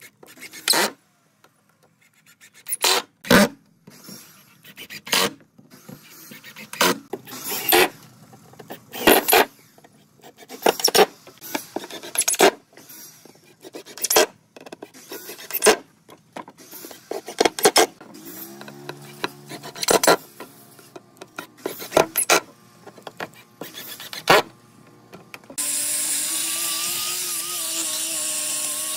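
Cordless power driver driving screws into pine boards in short bursts, one every second or two. Near the end a corded angle grinder runs with a steady, wavering whine.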